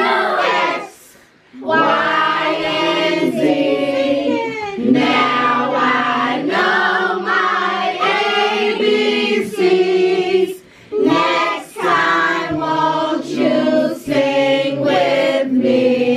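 A group of voices, children among them, singing a song together, with two short pauses between lines.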